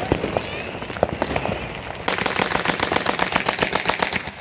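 Fireworks going off in a rapid string of bangs and crackles, scattered pops at first, then a dense, fast rattle from about halfway through.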